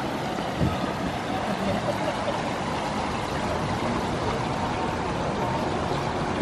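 Steady rush of water from a large ornamental pool's water feature, an even noise with no breaks.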